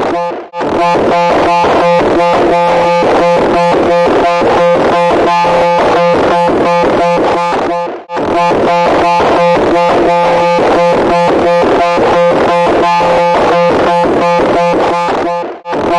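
A loud, harsh, buzzing sound that pulses rapidly and evenly over steady held tones. It breaks off for a moment about half a second in and again about eight seconds in, then starts again, as if the same sound is looping.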